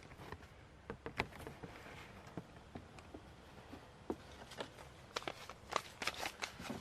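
Irregular light clicks and knocks of a metal desk stapler, an Ace Fastener Pilot, being handled and readied for stapling. The sharpest knock comes about a second in, with another cluster near the end.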